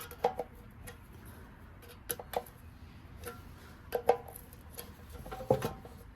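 Small metal carburetor parts clicking and clinking as they are handled, a scattering of sharp knocks each with a short metallic ring. The loudest come just after the start and about five and a half seconds in.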